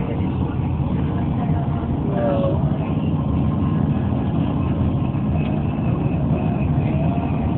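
Steady engine and road noise of a moving car, a constant low rumble.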